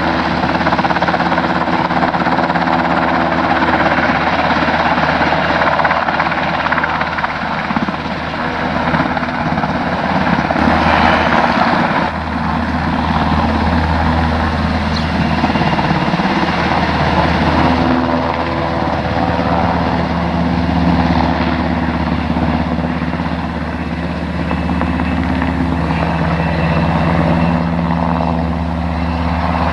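Military helicopter flying low overhead: a loud, steady rotor and engine noise that swells and eases slightly but never stops.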